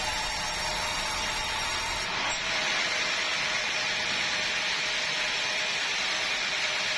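A sawmill saw running and cutting timber, a steady hissing noise. About two seconds in, the sound changes and becomes a little louder and harsher.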